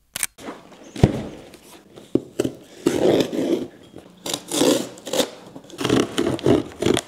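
A large cardboard shipping box being handled and opened, with scraping and tearing of cardboard and packing tape in irregular bursts, and a sharp knock about a second in.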